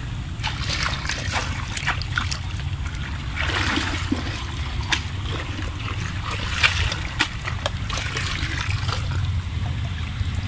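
Shallow water splashing and trickling in irregular small splashes as hands move in it at the bank, busiest about a third of the way in and again past the middle, over a steady low rumble.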